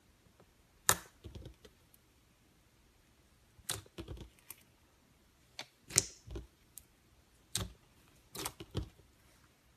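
Clear slime with holographic glitter mixed in, being pressed and folded by hand, giving sharp little pops and crackles in scattered clusters, the loudest about one and six seconds in.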